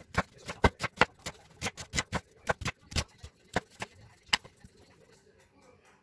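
Chef's knife slicing an onion on a wooden cutting board: a quick run of sharp knocks as the blade cuts through and hits the board, about four a second, stopping a little after the middle.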